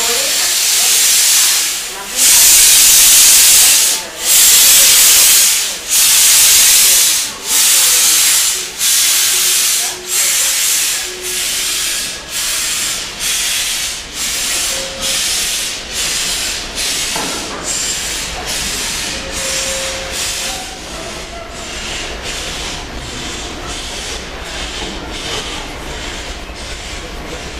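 LMS Stanier Black Five steam locomotive 44932, a two-cylinder 4-6-0, starting away with its cylinder drain cocks open: loud hissing exhaust beats, about two seconds apart at first, quickening to nearly two a second and fading as it pulls away.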